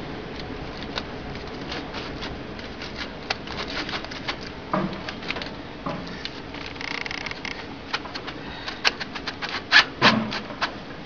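Scattered metal clicks and taps from a stainless band heater being fitted and adjusted around a briquette extruder's barrel, over a steady background hiss; the sharpest clicks come near the end.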